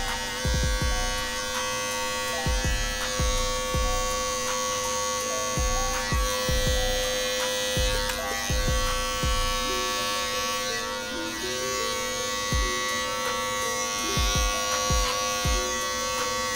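Andis Master electric hair clippers buzzing steadily while cutting hair, under background music with a steady beat.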